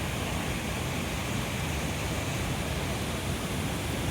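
Steady rushing noise of fast-flowing water, even and unbroken.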